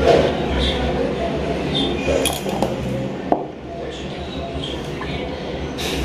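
A few light clicks and clinks, the sharpest about three seconds in, over a steady low hum and faint voices.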